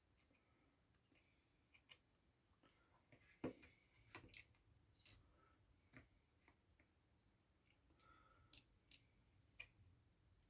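Faint, scattered, sharp clicks and taps of small tools and parts handled during iPhone 6s reassembly. There are about a dozen irregular ticks, the clearest around the middle and near the end.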